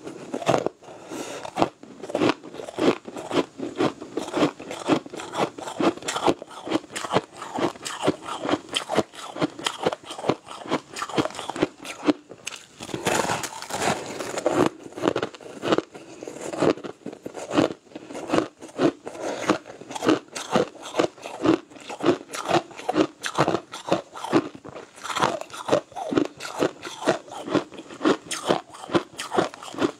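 Close-up crunching of green crushed ice being bitten and chewed, a dense run of sharp icy crunches several times a second.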